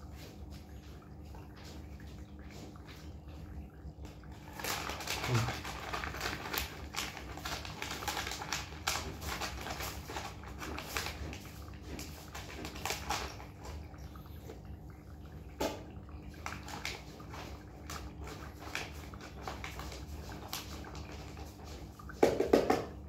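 Kittens eating from food bowls, with scattered clicks and small clatters as food is spooned into the bowls, busiest in the first half. A brief, loud pitched call sounds near the end.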